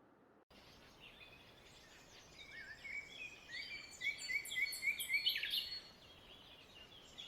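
Birdsong over faint outdoor background noise, starting after half a second of silence: assorted chirps and whistles, with a run of about five quick repeated notes in the middle.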